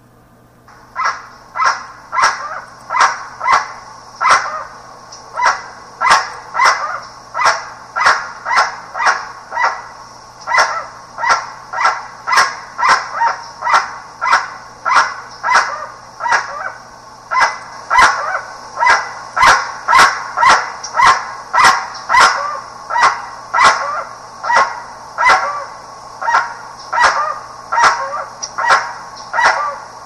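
A guan (jacu) giving a long, steady series of loud honking calls, about one and a half calls a second.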